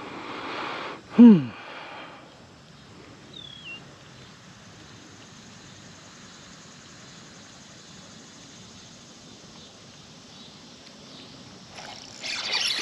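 Quiet pond-side outdoor background. About a second in comes a short loud cry that falls steeply in pitch, and a faint high chirp follows a couple of seconds later. A rush of noise rises near the end.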